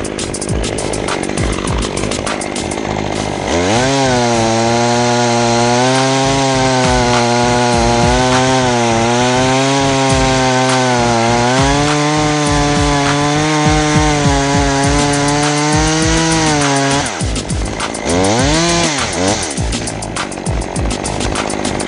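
Chainsaw idling with a fast rattle, then revved up about three seconds in and held at high speed through a cut for roughly thirteen seconds, its pitch sagging and recovering slightly under load. It drops back, and there is one short blip of the throttle near the end.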